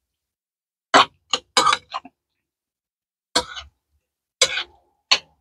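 A metal spoon stirring wet diced melon in a ceramic bowl, scraping and clinking against the bowl in about seven short strokes with silence between.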